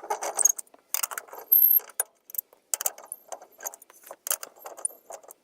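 Irregular metallic clinking and rattling of hand tools working on a Lada 21011's front brake bolts, short clicks in quick clusters with a faint high ring.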